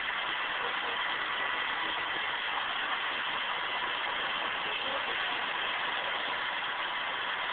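Black Hawk helicopter's twin turboshaft engines running steadily while it sits on the ground, an even, unbroken whine and hiss.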